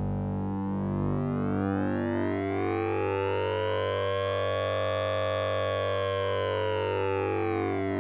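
Synthesizer 'sync and ring' effect from the Orange Vocoder VST plug-in: a steady low buzzing drone whose upper overtones sweep slowly up and then back down, peaking a little past midway, like a slow siren-like filter sweep.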